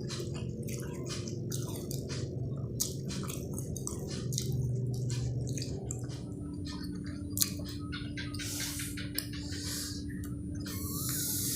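Close-up wet chewing of soft food: a quick run of squishy mouth clicks and smacks over a steady low hum. Near the end a broad hiss sets in.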